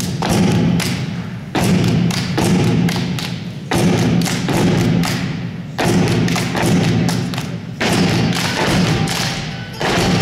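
LP cajón slapped by hand in a repeating heavy beat, with hand claps and a mandolin strummed along.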